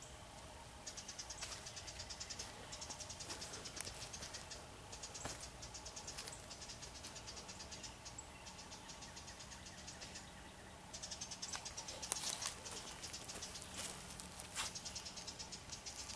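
A small wren scolding: four bursts of rapid, high, dry chattering, each one to three seconds long, which is taken as an alarm at an owl nearby. Rustling footsteps in dry leaf litter in the last few seconds.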